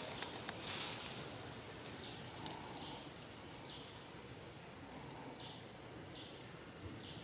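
Faint forest background with short, high, buzzy calls repeating roughly once a second, and a brief rustle just under a second in.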